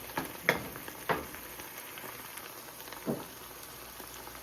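Egg-white and mushroom scramble frying in olive oil in a pan, sizzling steadily, with a few short clicks in the first second or so and one more about three seconds in.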